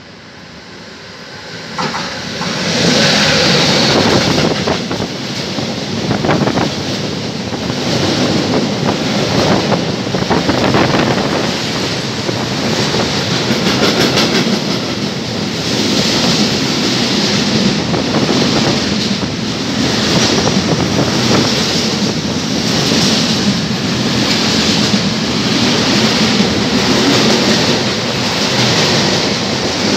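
A long train running through the station at speed on the nearest track, close by. The noise swells about two seconds in and then holds as the wagons roll past, wheels on rails pulsing with a regular clickety-clack about once a second.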